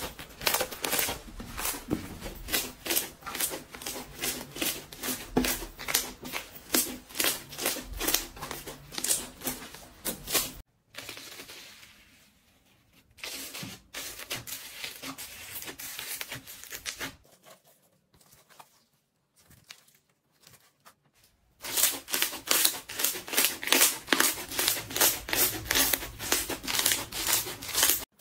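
Slime being squeezed and worked by hand, giving rapid crackling and clicking pops. The clicking gives way to softer, quieter squishing with brief silences through the middle, then returns at full strength for the last several seconds.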